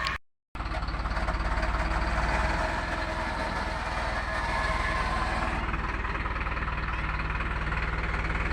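Steady rumbling, vehicle-like noise, cut by a brief total dropout just after the start; the higher hiss thins out about halfway through.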